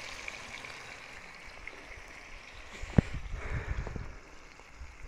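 Shrimp sizzling in hot oil in a frying pan, a steady hiss with fine crackles that eases off later. About three seconds in, a sharp knock, followed by a second of low rumbling.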